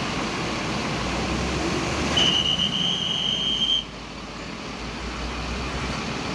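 Bus engine running with a low rumble. About two seconds in, a single shrill whistle note sounds for about a second and a half, and the noise drops a little after it stops.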